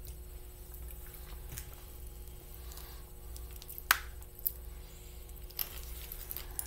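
Warheads blue raspberry popping candy crackling in the mouth as it is eaten: faint scattered pops and ticks, with one sharper click about four seconds in.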